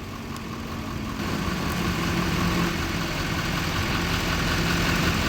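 Tow vehicle's engine running steadily as it reverses the boat trailer down the launch ramp, getting louder about a second in.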